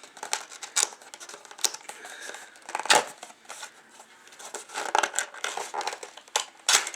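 Retail hard-drive packaging being torn and worked open by hand: a run of short ripping, scraping and crinkling strokes, the sharpest about a second in, around three seconds, and near the end.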